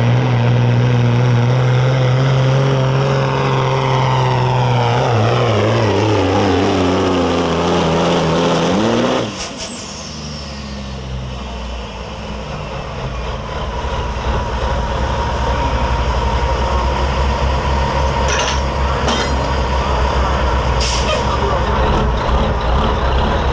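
Kenworth pro street semi's diesel engine running hard under load, its pitch falling steadily over several seconds as the truck slows to a stop. About nine seconds in comes a sudden sharp air-brake hiss, then the engine idles, with a few short hisses near the end.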